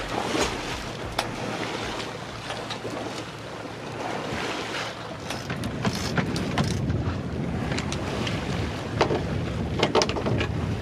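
Wind buffeting the microphone and water rushing past the hull of a sailing yacht under sail in a fresh breeze, with a few sharp knocks in the second half.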